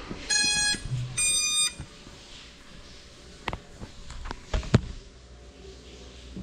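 Two electronic beeps of about half a second each, the second one higher-pitched, followed by a few sharp knocks from handling as the camera is moved and set down.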